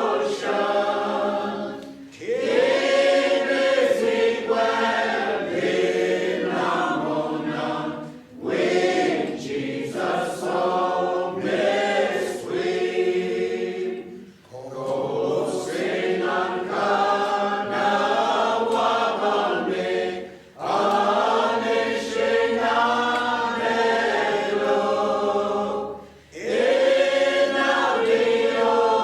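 Choir singing a hymn in long phrases of about six seconds, with short breaks between them.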